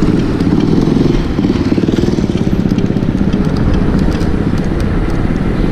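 Wind buffeting the camera microphone and tyre rumble from an electric kick scooter riding along a concrete road at about 25 km/h: a loud, steady, fluttering low rush with no engine note.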